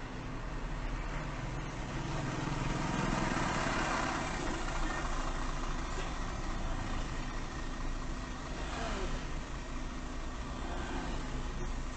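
Car engines idling, with other vehicles moving slowly past in stopped traffic; a steady engine and traffic sound with no sudden events.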